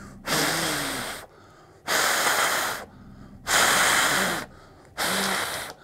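A man blowing hard from his mouth over the top of a paper strip held at his lips: four puffs of rushing breath, each about a second long, with short pauses between them.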